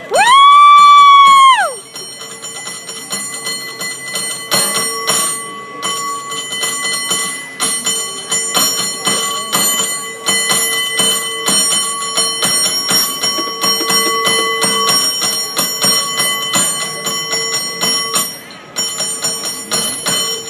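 A San Francisco cable car bell rung in a fast rhythmic pattern: dense strikes over a steady ring, with a short break near the end. It opens with a loud, high tone that bends up and back down over under two seconds.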